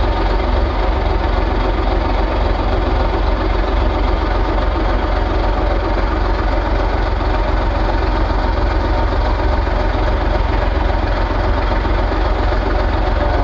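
Excavator's diesel engine running steadily, a constant heavy low drone with no change in speed.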